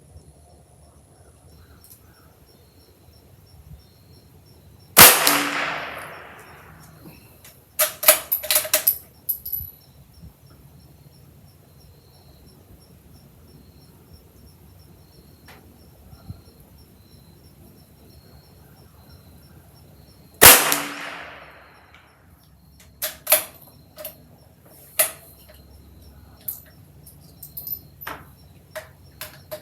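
Two shots from a Ruger Precision Rimfire bolt-action rifle in .22 LR, about five seconds in and again about fifteen seconds later, each trailing off for a second or so. After each shot comes a quick run of sharp metallic clicks as the bolt is worked to chamber the next round.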